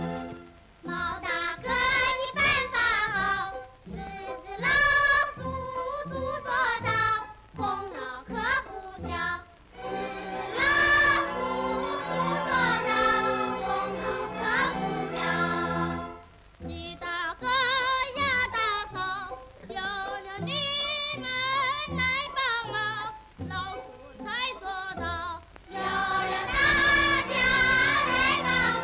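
A song sung in Mandarin by several voices with instrumental accompaniment, the voices wavering with vibrato and pausing briefly between sung phrases.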